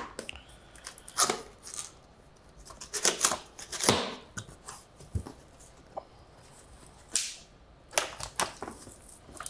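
Cardboard box being opened by hand: a string of short scrapes, rips and rustles at uneven intervals, the longest about four seconds in, with the top flaps being lifted near the end.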